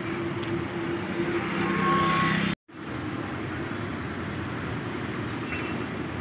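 Road traffic of buses and motorcycles, engines running steadily and growing louder. About two and a half seconds in, the sound cuts out for a moment, then the steady traffic noise resumes.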